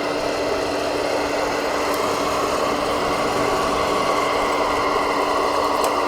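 Radio-controlled construction model's electric motor and gearing running with a steady whine and hum. A higher whine grows slightly stronger about halfway through.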